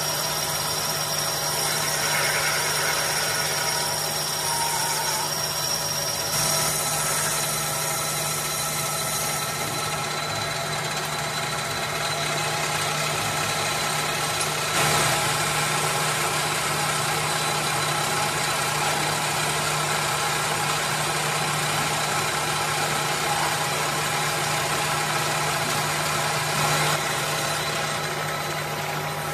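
Metal lathe running steadily with a cast brake cylinder body spinning on its faceplate while a boring bar machines the bore. A constant low hum from the lathe's drive sits under an even cutting and machine noise.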